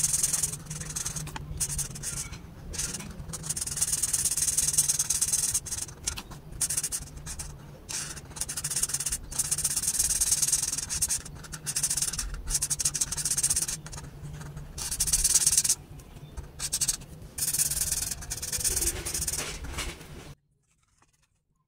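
Tip of a twin-tip marker rubbing across paper in quick strokes, a scratchy hiss that comes in bursts with short pauses, over a faint low hum; it all cuts off abruptly near the end.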